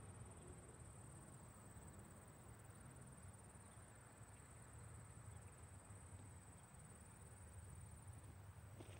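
Near silence: quiet pond-side ambience with a faint, steady, high-pitched insect drone and a low rumble, and a small click near the end.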